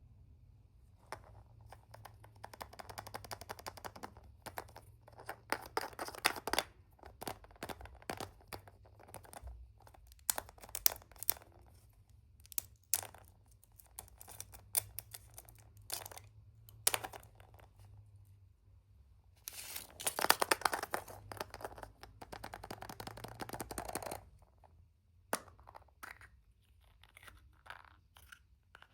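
Hands unwrapping surprise eggs: a wrapper tearing and crinkling in two longer spells, one near the start and one past the middle, between many sharp taps and clicks of handled packaging.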